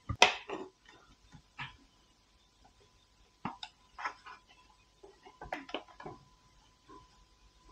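Handling noise from a 1/12-scale plastic RC truck body: irregular light clicks, taps and rubbing as a small driver figure is fitted into the cab and the cab door is opened and shut. The loudest knock comes right at the start.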